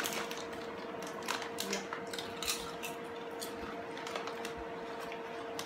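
Potato chips being crunched and a foil snack bag crinkling as a hand reaches in: an irregular scatter of short crackles. A steady faint hum runs underneath.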